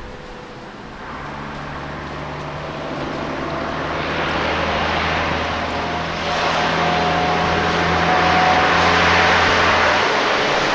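A motor vehicle's engine approaching, its steady low hum and rushing noise growing louder over several seconds. The low engine hum drops away near the end.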